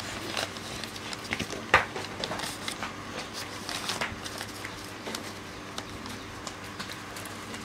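Scattered small clicks and crackles of Burmese grapes and their stems being handled and bitten in a woven basket, with one sharper snap about two seconds in.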